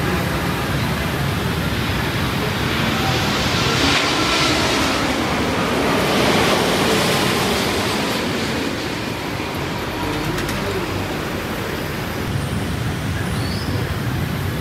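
Boeing 787-9 airliner passing low overhead on short final approach. Its jet engine noise swells to a peak about four to seven seconds in, then fades.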